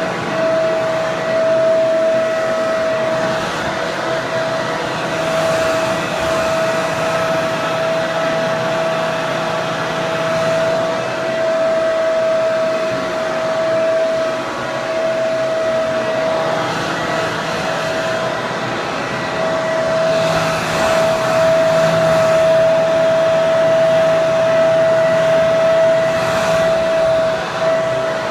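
Hair dryer running steadily: rushing air with a constant whine.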